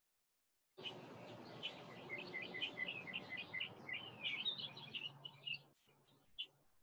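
Birds chirping in quick runs of short, high notes over a faint steady outdoor hiss. The hiss drops away near the end, leaving a few scattered chirps.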